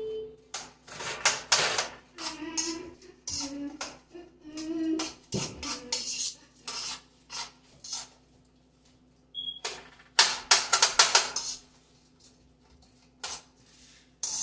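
A utensil scraping and clinking against a wok as cauliflower rice and shrimp are stirred. The scrapes come in irregular bursts, with a dense flurry about ten seconds in, then only a couple of stray clicks.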